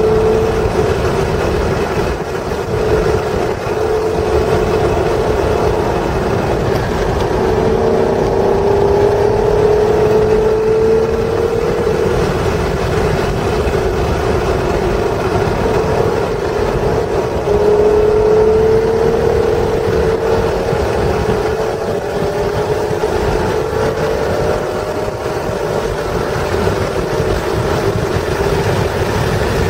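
1996 Acura NSX's mid-mounted 3.0-litre V6, heard from inside the cabin on a track lap, running under throttle. Its note rises in pitch in long sweeps about seven and seventeen seconds in, then climbs again more slowly as the car speeds up. Steady road and tyre noise runs underneath.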